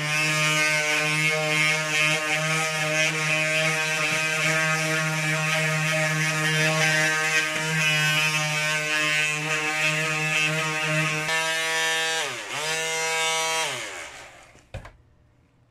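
Handheld electric sander running steadily with an even buzzing hum as it is worked over the painted steel of BMX handlebars to rough up the paint. A little before the end its pitch dips and climbs back, then it stops.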